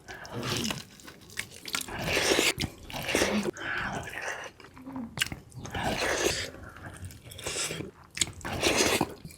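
A person chewing and biting food close to the microphone, with wet mouth sounds in repeated bursts.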